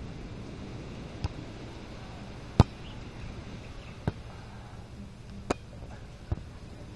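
A beach volleyball struck by players' hands and forearms five times during a rally: short, sharp slaps roughly every one to one and a half seconds, the third hit the loudest.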